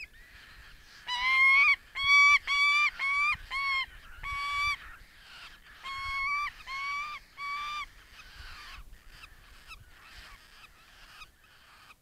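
Adult female Saker Falcon calling loudly at the nest: a quick series of about eleven pitched calls, with a short pause midway. Quieter calls follow over the last few seconds.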